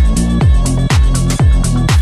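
Electronic background music with a steady kick drum, about two beats a second, over a bass line and sharp high percussion between the beats.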